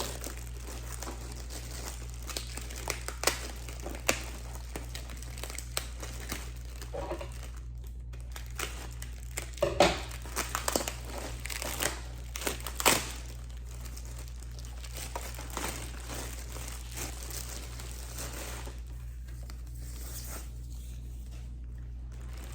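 Plastic packaging crinkling and tearing as it is pulled off a newly unboxed electric space heater: irregular rustling with louder crackles about ten and thirteen seconds in, over a steady low hum.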